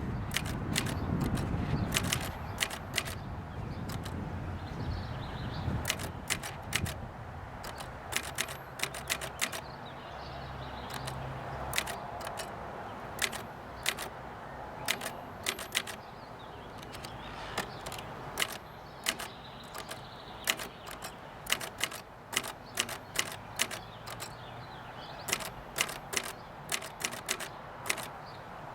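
Facit 1620 manual typewriter typing a line of text: sharp, irregular key strikes in quick runs separated by short pauses. Its escapement has been freshly cleaned and oiled, so the carriage steps along with each key.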